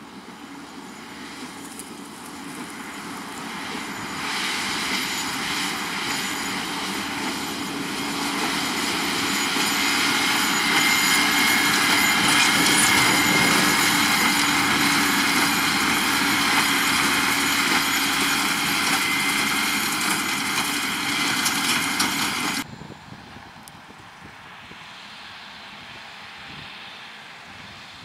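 John Deere 6250R tractor's six-cylinder diesel and Case IH LB436 HD large square baler running at work in straw. It grows louder as the outfit comes close, with a steady high whine at its loudest. About three-quarters of the way through it drops abruptly to a fainter running sound of the same outfit further off.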